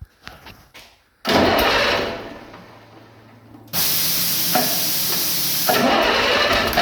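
Weichai WD615 inline-six diesel being started for the first time after a rebuild: a sudden loud burst about a second in that fades away, then a loud, steady hissing rush from about halfway, with a low steady running note beneath it.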